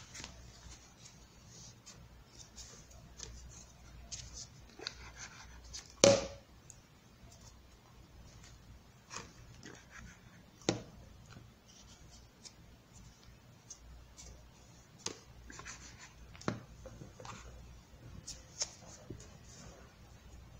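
Hands handling and folding EVA craft foam petals on a cutting mat: soft rustling and rubbing, with scattered light taps and clicks, the loudest about six seconds in.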